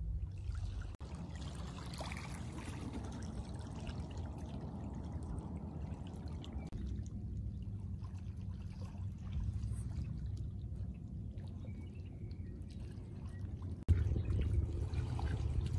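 Lake water lapping and trickling over a pebbly shoreline, over a steady low rumble.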